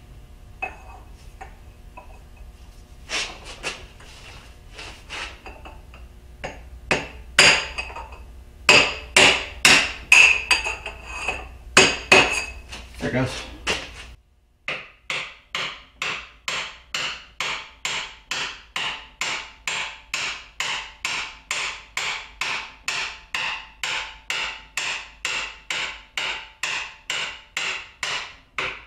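Hammer blows on the end of a steel tube used as a driver to press a tight-fitting part into a Bridgeport mill's X-axis power feed, each blow sharp and ringing. The blows come unevenly for the first half, then as a steady run of about two a second; the part is a lot tighter than it should be.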